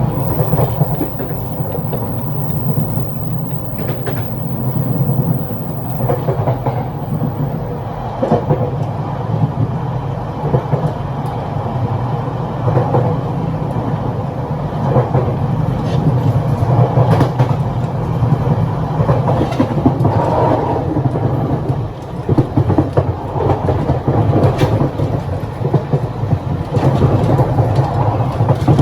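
Running noise in the gangway between cars of a Taiwan Railways EMU1200 Tze-Chiang express train. A steady low rumble runs with irregular knocks and rattles scattered through it.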